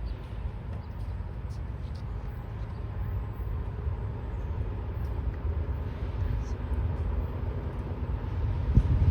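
Low rumble of an approaching BNSF intermodal freight train, slowly growing louder, with a thump near the end; no horn sounds.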